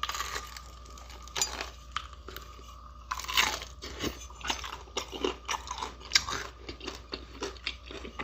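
Close-miked biting and chewing of crispy Popeyes fried chicken: a crunching bite, a louder crunch about three seconds in, then quick crunchy chewing, two or three chews a second.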